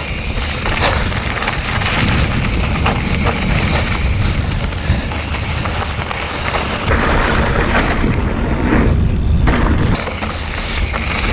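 Wind rumbling on the microphone over the rolling noise of a mountain bike riding a dirt trail, with scattered clicks and rattles.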